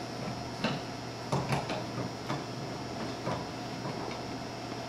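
Hand wrenches clicking and clinking against the quick-connect fittings of a mini-split air conditioner's refrigerant line set as they are set on and taken off, a handful of scattered metal clicks over a steady low hum.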